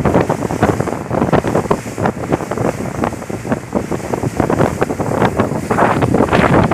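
Strong wind buffeting the microphone: a loud, fluttering, uneven rumble with no steady tone.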